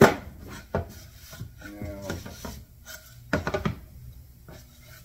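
Plywood panel being handled on a table saw's top: a sharp wooden knock at the start, another about a second in, and a quick run of knocks around three and a half seconds in, with wood rubbing and sliding between.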